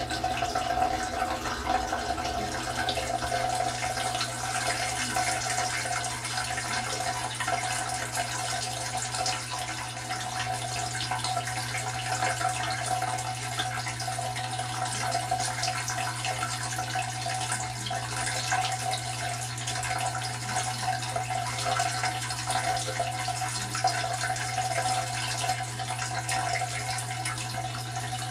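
KitchenAid KDTM604 dishwasher, heard from inside its stainless steel tub: water running steadily, with a constant low hum from the machine underneath.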